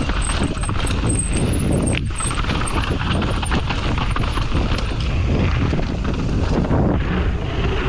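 Mountain bike ridden downhill over a rough trail: continuous tyre rumble on dirt and rock, with the bike rattling and knocking over constant bumps.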